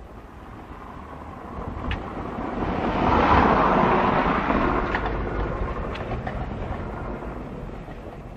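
A vehicle passing by: a rushing noise that grows louder over a couple of seconds, peaks, then slowly fades away, over a low rumble.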